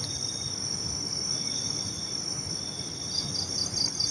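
Crickets trilling steadily, with a short run of quick chirps about three seconds in.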